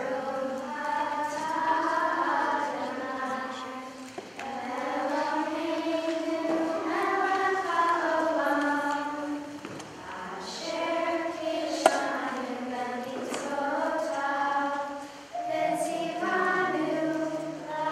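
A group of children singing a Hanukkah song together at the menorah lighting. They sing in long phrases of held notes, with short pauses about every five or six seconds.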